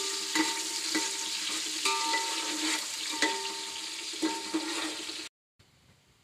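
Sliced onions sizzling as they fry in hot ghee in a metal pot, stirred with a metal slotted spoon that scrapes the pot several times with squeaky strokes. About five seconds in the sound cuts off, and a much fainter sizzle with small crackles follows.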